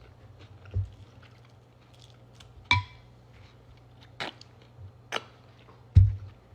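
Cutlery knocking and clinking against a dish while eating: a few separate taps, one ringing clink about three seconds in, and a dull thump near the end.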